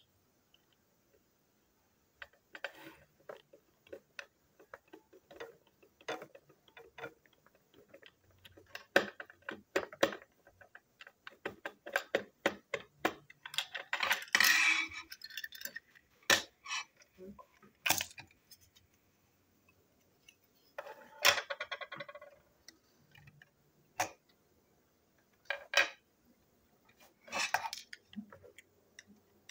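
Plastic toy locomotive tender being taken apart by hand: small clicks and knocks of plastic parts and a screwdriver, with three rattling scrapes about a second long, one near the middle and two later on.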